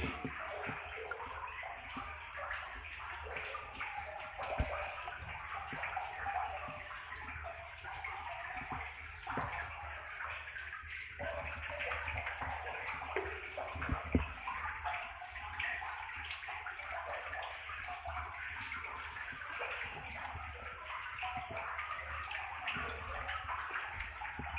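Water sloshing and swirling around the legs of a person wading through deep water in a flooded mine adit, a steady splashing with a couple of dull knocks.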